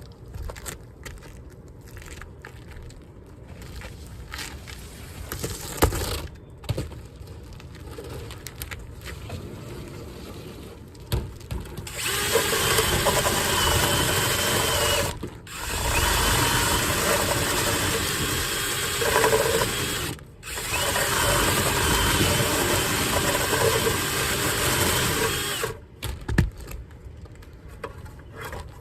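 Cordless drill spinning a rotary dryer-vent cleaning brush inside the duct, starting about twelve seconds in, cut off briefly twice, and stopping near the end. Before it, a few light knocks and handling sounds.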